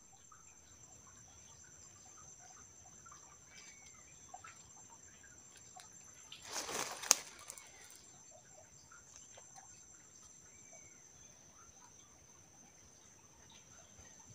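Quiet forest ambience: a steady high-pitched insect drone with scattered short bird chirps. About seven seconds in comes a brief rustle that ends in a sharp crack.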